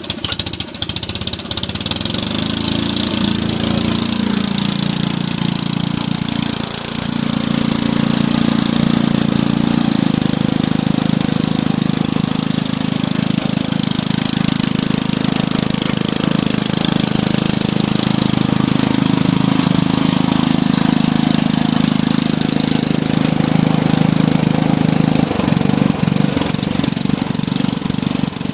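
A 1979 Toro lawn mower's engine running steadily just after starting. Its note wavers a little in the first few seconds, then holds steady.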